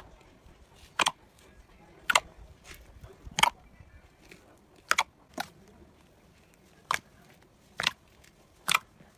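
Slime being worked by hand, giving a string of sharp pops about once a second, like air pockets bursting in the slime.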